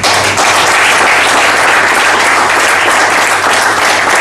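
Audience applauding, dense and steady clapping from a roomful of people.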